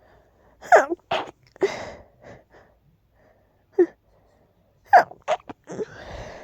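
A person sneezing twice from a nose tickle: each time a short voiced gasping build-up, then a sharp sneeze burst and a breathy release. The first sneeze comes about a second in, the second about five seconds in.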